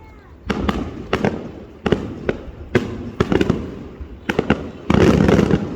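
Aerial fireworks bursting, with sharp bangs every half second or so. About five seconds in they thicken into a dense, loud barrage.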